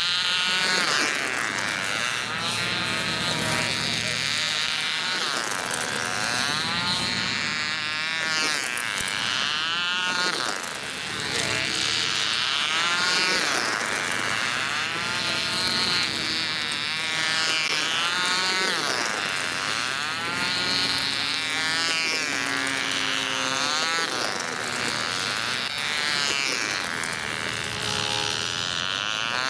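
Small model diesel engines on 1950s-style rail racing cars buzzing at high revs as the cars lap the track. The pitch swoops up and down again and again as cars pass.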